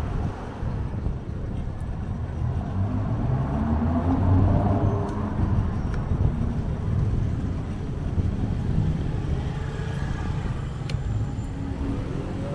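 Street traffic heard from a moving bicycle: a motor vehicle's engine rising in pitch as it speeds up, a few seconds in, over a steady low rumble.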